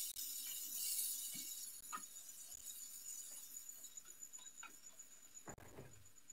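Faint, scattered clinks and taps of kitchen utensils and dishes, with a short rustle about five and a half seconds in.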